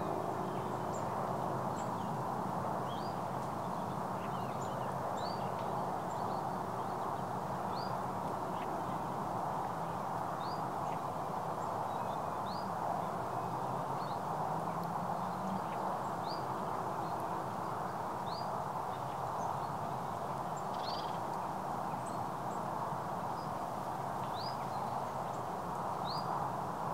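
Shallow stream running steadily over stones and water plants, a constant rushing hiss. A bird repeats a short, high, rising chirp about every two seconds over it.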